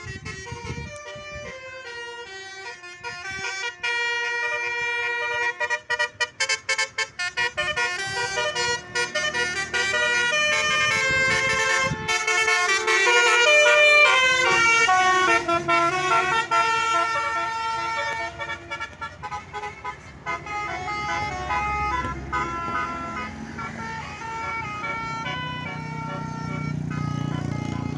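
Basuri 'telolet' multi-tone bus horns playing a melody, the chord of tones stepping up and down from note to note, loudest around the middle. A low engine rumble grows near the end.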